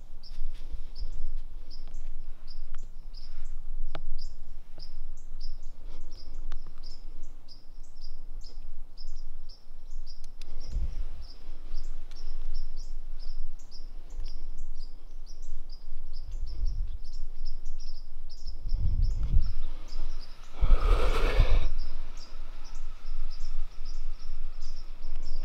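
An insect chirping steadily, a short high chirp repeated about twice a second. A few low thumps and a brief louder rustle come near the end.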